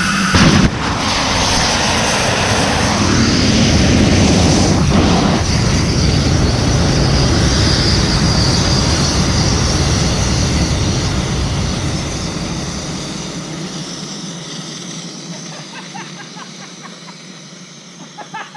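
Superconducting MRI magnet's liquid-helium cryostat failing in a rapid warm-up: a sudden loud blast about half a second in, then a loud rushing of helium gas boiling off and venting. The rushing slowly dies away over the last several seconds.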